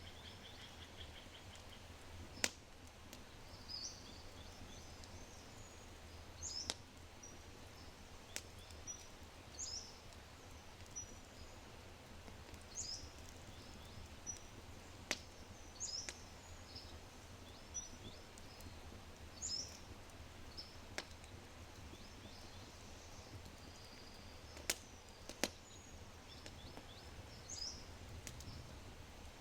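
Oak fire crackling in a brick fireplace, with sharp scattered pops, the loudest about two seconds in, over a low steady rumble. Birds chirp repeatedly in short high notes throughout.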